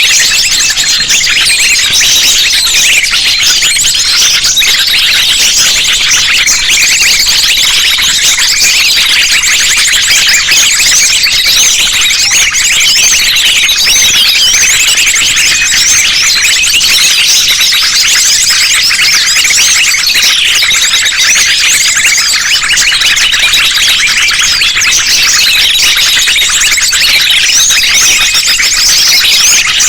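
A lure recording of many small birds, sunbirds among them, calling together: a loud, unbroken tangle of high-pitched chirps and trills layered over one another.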